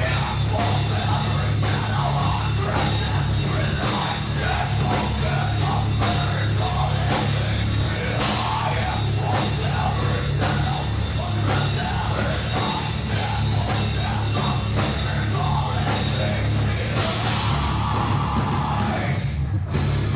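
Alternative metal band playing live: drum kit, bass and guitars, loud and dense, with bright cymbal washes about eight seconds in and again near the end.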